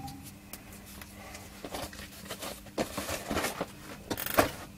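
Small handling sounds on a workbench: scattered light clicks and rustles as a cut piece of heat-shrink tubing and a cutting tool are handled and set down, with a few sharper taps near the end. A faint low hum runs underneath.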